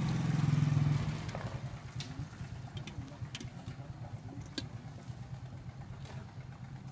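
A motor vehicle engine running close by, loudest in the first second and then fading as it moves away, with a few light clicks over it.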